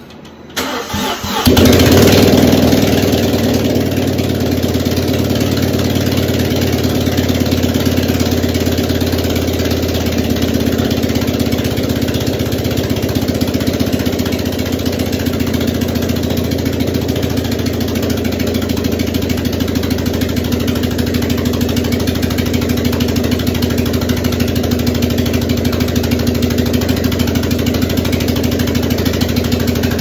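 Audi 2.0T turbocharged four-cylinder engine cranking briefly and catching about a second and a half in, flaring up and then settling into a steady idle. The engine is running again after its no-start fault.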